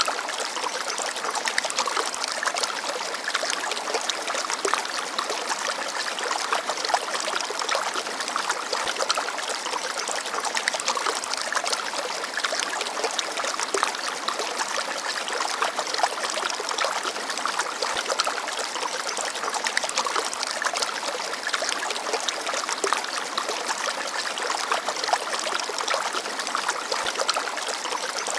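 Shallow forest stream babbling and trickling over stones, a steady splashing rush full of fine crackles with little deep rumble.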